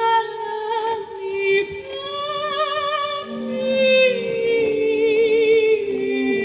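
Background music: a woman's voice singing long held notes with vibrato over a steady drone.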